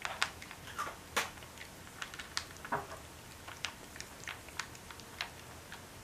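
A cat eating raw cat food off a platter: irregular wet smacking and clicking chews, a few a second.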